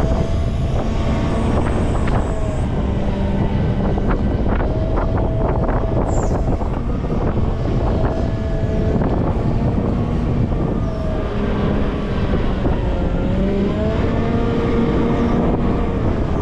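Volvo L90F wheel loader's diesel engine running under work, its revs rising and falling, with a short run of clattering knocks about four to six seconds in.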